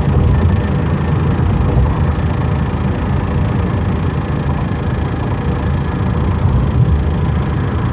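Steady engine and road rumble inside a Scion tC's cabin, with the dashboard rattling.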